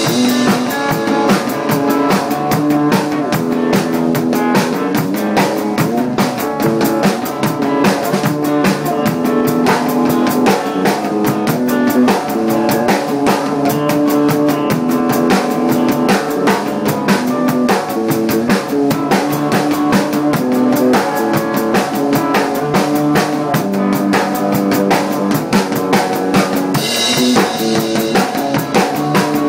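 A drum kit played at a steady driving beat, with kick drum, snare and cymbals hitting fast and continuously. Pitched instruments hold and change notes underneath, as a band jamming along.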